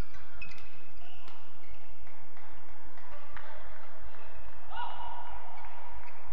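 Court shoes squeaking on a badminton court mat, with sharp racket-on-shuttlecock hits during a rally.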